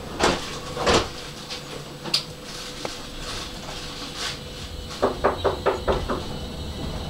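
Tram running slowly along street track, with a steady low rumble and faint hum. There are two sharp clicks about a second in, and a quick run of about six knocks, roughly five a second, near the end.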